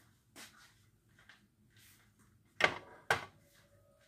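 Sharp knocks of kitchen items being handled and set down: a faint knock, then two loud knocks about half a second apart a little past halfway.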